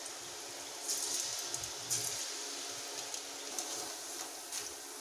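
Rice-flour punugulu (batter fritters) deep-frying in hot oil: a steady sizzle with small crackles, a little louder about a second in.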